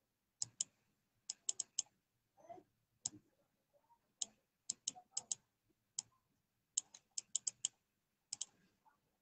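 Sharp clicks of a computer mouse button, coming singly and in quick runs of two to five.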